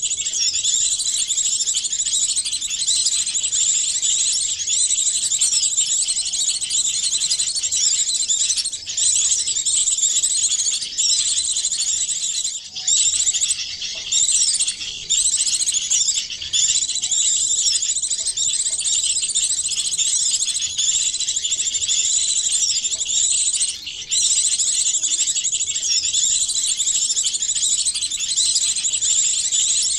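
Dense, high-pitched chorus of many small songbirds chirping and twittering at once, nearly unbroken apart from a few brief gaps. It is a layered mix of small-bird calls used as a lure call to draw small birds in.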